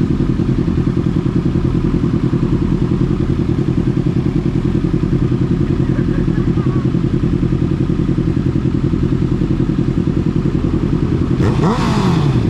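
Sport motorcycle engine idling steadily with a fast, even pulse while stopped. Near the end another engine briefly revs up and falls back.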